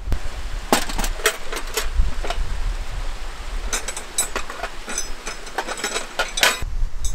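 Metal tent pegs clinking and rattling against each other and a steel toolbox as a hand rummages through them and picks some out, in two bursts of sharp, ringing clinks. Low wind rumble underneath.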